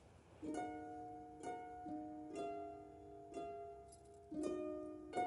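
Soft background music of plucked, harp-like notes, a new note or chord about once a second.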